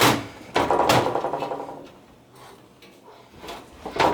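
Clunks and scrapes of a desktop computer tower's metal case parts being handled as a part is slid out. A few sharp knocks come in the first second, it goes quiet for a moment, and there are more knocks near the end.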